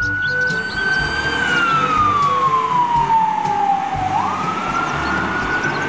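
Fire engine siren wailing: one tone that holds, falls slowly over about three seconds, then sweeps quickly back up about four seconds in.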